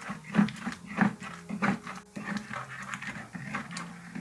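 Pestle grinding pepper, onions and salt in an earthenware apotoyiwa bowl: rhythmic rubbing and knocking strokes, about one every half-second, fading after the first two seconds.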